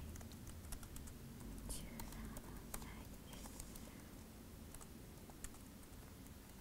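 Typing on a computer keyboard: a quick, irregular run of key clicks as text is typed out.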